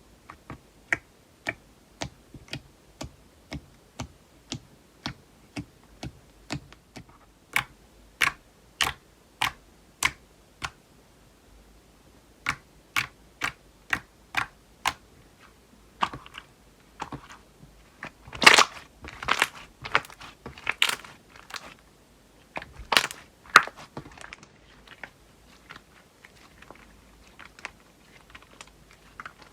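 Slime being poked and squished by hand, giving a steady run of sharp clicks and pops about two a second. About halfway through it turns louder and more crackly for several seconds, then drops back to fainter clicks.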